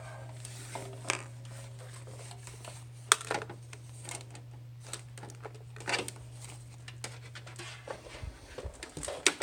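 Handling noise of small objects: scattered clicks, a few sharper knocks and scratchy rustling. Beneath it is a steady low hum that stops about eight seconds in.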